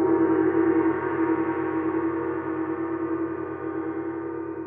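A gong ringing out after being struck, its deep tone fading slowly with a steady rippling waver.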